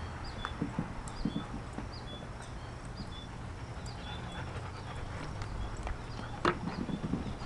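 German shepherds playing with a hard plastic ball: scattered hollow knocks and bumps as the ball is bitten, carried and pushed over dirt and roots, with paws scuffling, and one louder, sharper sound about six and a half seconds in.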